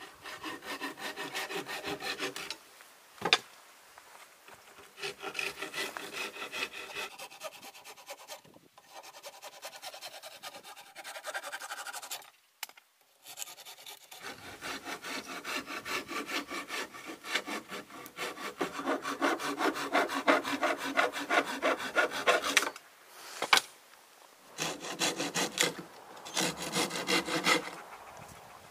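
Hand saw cutting through wooden cladding boards, in several runs of fast back-and-forth strokes with short pauses between them.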